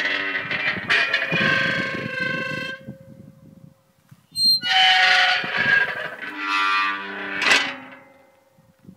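Loud squeaking in two long drawn-out stretches of about three seconds each, with a short high squeak between them.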